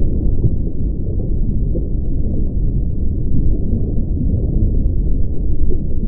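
Steady low rumble of water moving past a microphone underwater, a dull, muffled noise with nothing high in it.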